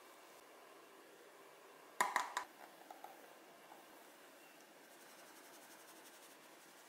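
A short clatter of a fine-mesh metal sieve knocking against a glass bowl about two seconds in, ringing briefly, followed by a few light ticks. Near the end, faint quick rhythmic rattling as the sieve is shaken to sift flour.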